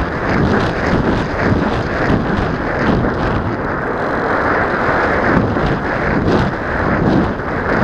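Wind rushing and buffeting over the microphone of an action camera riding on a small foam RC airplane in flight: a loud, ragged rush that swells and dips.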